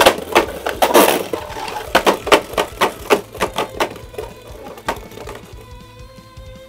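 Beyblade spinning tops clashing in a plastic stadium: rapid sharp hits that thin out over about four to five seconds as the battle winds down.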